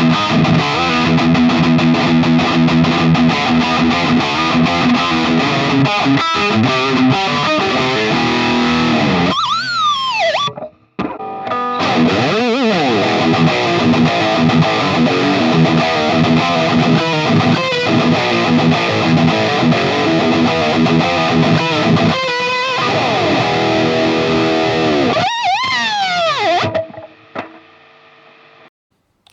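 Distorted electric guitar played through a digital amp modeler, heavy riffing. It stops briefly about ten seconds in after a sweep of sliding pitch, starts again, and ends with another sliding sweep before dying away near the end.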